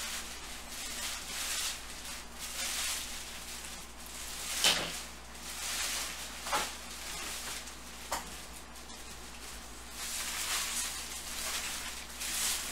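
Trading cards and cardboard card boxes handled on a tabletop: irregular rustling and sliding, with three sharp taps about five, six and a half and eight seconds in.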